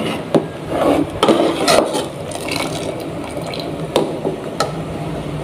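Metal ladle scraping and clinking against the side of a cooking pot while stirring a pudding mixture, with a few sharp clinks in the first two seconds and two more around four seconds in. A low steady hum runs underneath.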